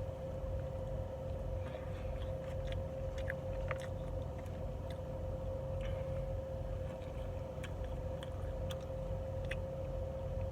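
Small wet clicks and smacks of someone chewing and eating a waffle, scattered through, over a steady low rumble and a steady hum.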